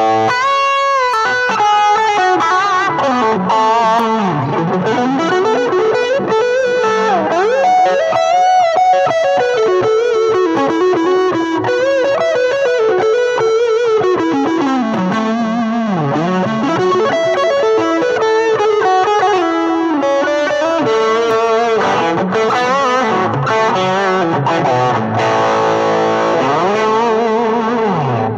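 Better LP-10 Les Paul-style electric guitar played lead: a flowing single-note melody with bent, sustained notes that slide up and down in pitch.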